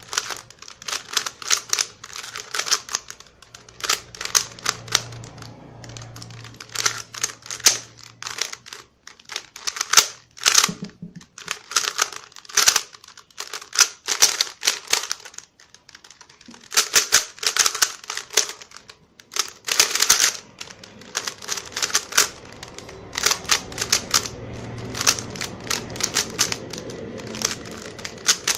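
Plastic Rubik's cube layers being turned fast by hand, in quick runs of clicks and clacks broken by short pauses.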